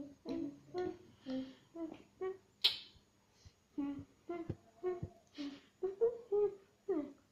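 A voice hums or vocalizes in a string of short pitched syllables in a small room, with one sharp click about two and a half seconds in.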